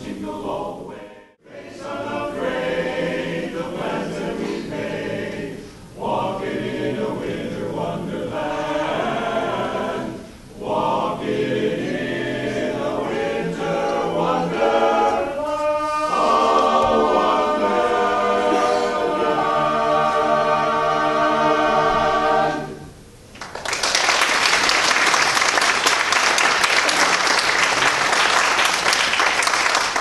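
Men's barbershop chorus singing a cappella in four-part close harmony, ending on a long held chord. About three-quarters of the way through, the singing stops and the audience breaks into applause.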